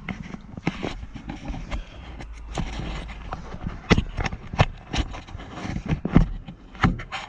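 Irregular sharp knocks and clicks over a low rumble: handling noise of the camera dropping and being knocked about against the excavator cab.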